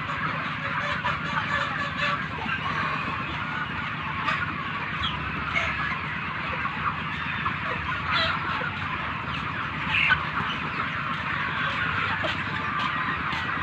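A large flock of chickens clucking and cheeping together in a dense, continuous chorus, with a steady low hum underneath.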